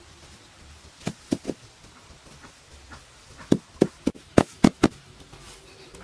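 Sharp thuds of earth being struck: three about a second in, then six more in quick succession about halfway through.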